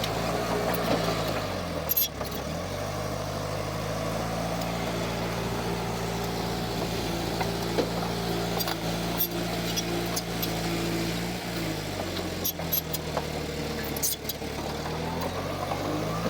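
Heavy diesel engine of construction machinery running steadily, its pitch dropping and rising again about two seconds in and twice more near the end as the load changes. Scattered sharp knocks and clanks sound over it.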